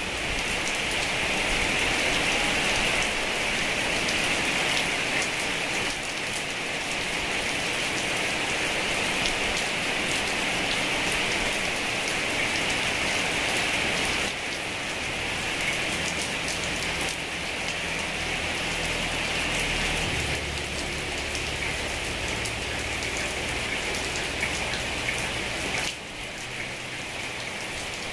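Heavy rain falling steadily: a dense hiss with many individual drop ticks. It eases slightly about halfway through and again near the end.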